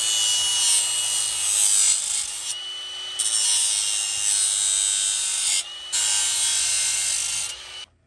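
Milwaukee angle grinder grinding down a steel shock bracket: a steady motor whine under a loud hiss of the wheel on the metal. The grinding eases off twice, and the grinder stops just before the end.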